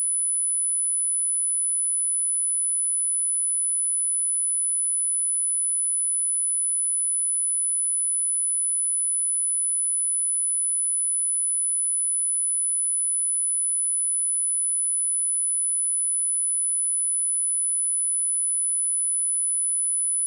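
A single steady 9986 Hz sine-wave test tone, a very high pure whistle held at constant pitch and level, used to test speakers and to shake water and dust out of them.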